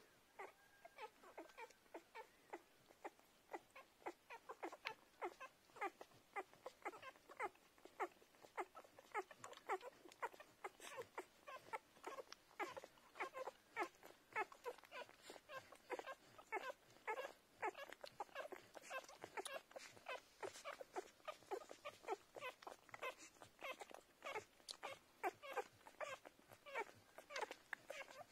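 Newborn cream kelpie puppies nursing: a faint, rapid run of short squeaks, whimpers and suckling noises, several a second, never stopping.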